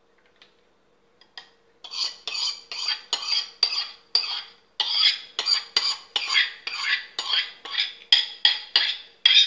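A steel spoon scrapes quickly and repeatedly around the inside of a bowl, about three strokes a second, pushing thick milk pudding batter out into a steel vessel. It starts about two seconds in and pauses briefly midway.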